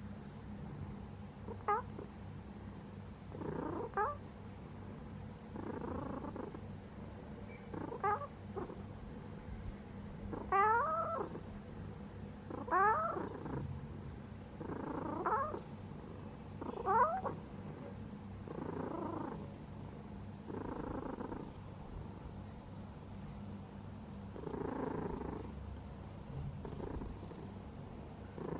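A sleeping cat breathing noisily, about one breath every two seconds. Some breaths carry a short squeaky whistle that rises in pitch, and others a softer rasp.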